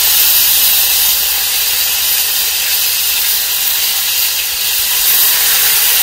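Marinated chicken pieces sizzling in a wok of piping-hot vegetable oil over a charcoal fire: a steady, loud hiss as the chicken and marinade hit the oil.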